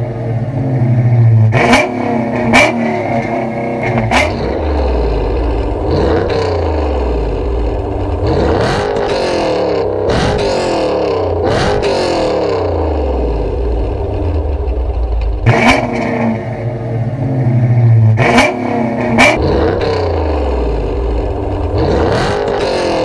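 Dodge 5.7-litre Hemi V8 revved at a standstill through aftermarket exhausts, first on Flowmaster 40 mufflers with a resonator delete, then on a Borla ATAK stainless catback. Each run starts with quick, sharp throttle blips and goes on to longer revs that climb and fall back.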